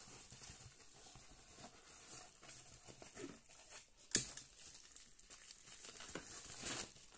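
Paper crinkling and rustling as a rolled diamond-painting canvas is handled, with one sharp tap about four seconds in.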